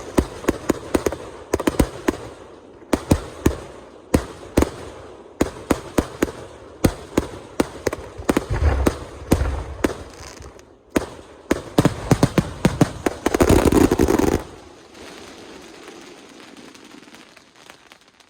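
Aerial fireworks going off: a rapid series of sharp bangs, building to a dense, crackling volley that stops abruptly about fourteen seconds in. Faint crackling follows.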